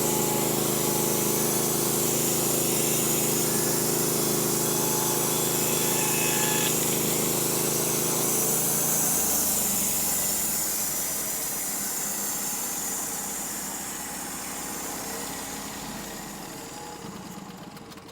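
Norwood HD36 portable band sawmill's engine running steadily at speed, then dropping to a lower pitch about halfway through and slowly fading.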